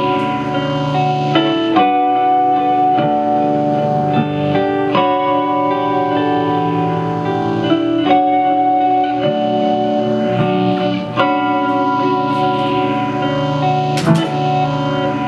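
Layered ambient electric guitar loops: held chords and repeating picked phrases, played through a looper pedal and an amp's spring reverb turned all the way up. A sharp click sounds near the end.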